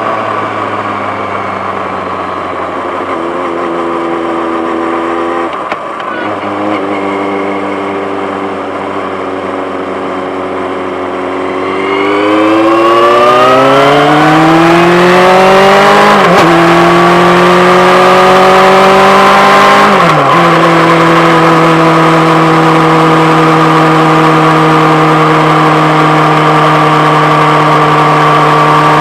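Yamaha FZ6-N's inline-four engine through a Two Brothers aftermarket exhaust, heard close up. It runs steadily at low revs, then about twelve seconds in it climbs in pitch, drops sharply twice, and settles into a steady, higher-revving drone.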